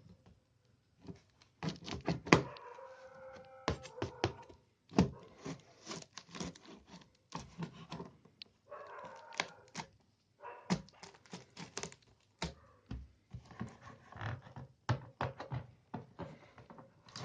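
A knife cutting through the sealing tape and cardboard of a box: a steady run of sharp clicks and knocks, with squeaky scraping drags now and then.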